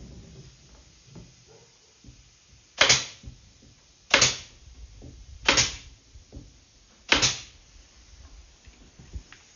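Senco pin tacker firing four times, about a second and a half apart, a sharp crack each time as it drives pins to nail a glued wooden box together.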